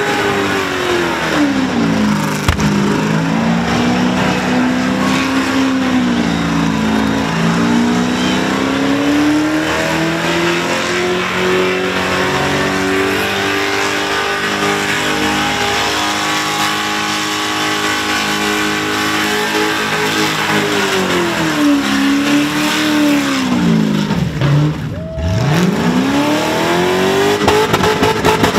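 Holden Commodore's engine held at high revs through a burnout, over the hiss and squeal of its spinning rear tyres. The revs sag and waver, and near the end they drop right off before climbing straight back up.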